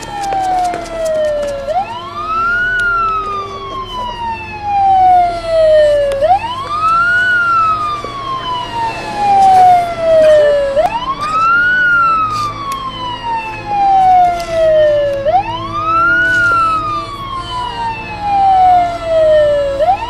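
Emergency vehicle siren wailing. Each cycle rises quickly in pitch over about a second, then falls slowly over about three more, repeating roughly every four and a half seconds.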